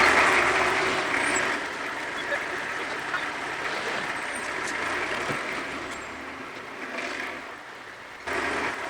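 Homemade horizontal bandsaw mill with an electric motor running: a steady, noisy mechanical whir that grows fainter over several seconds, then jumps back up suddenly near the end.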